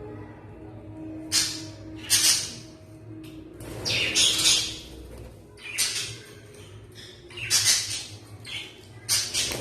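Pet budgerigars (budgies) squawking: a series of about seven loud, harsh screechy calls at irregular intervals.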